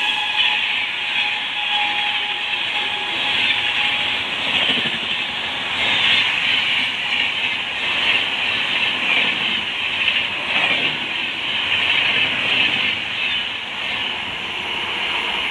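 LHB passenger coaches of a Rajdhani Express passing close by at speed: a steady, loud rush of wheels on the rails with a hiss, and a few faint clacks over the rail joints.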